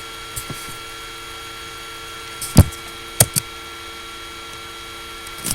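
Laptop cooling fan running with a steady whirr and a faint constant tone, with a few sharp clicks over it: the loudest about two and a half seconds in, then two more close together about half a second later.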